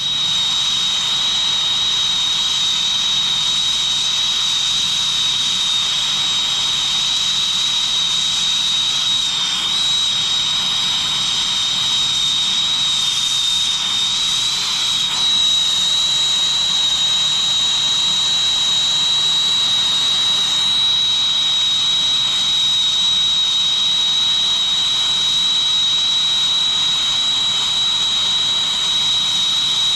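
Brazing torch flame burning steadily as it heats a copper refrigerant-line joint for brazing: a loud, even hiss with a steady high whistle over it.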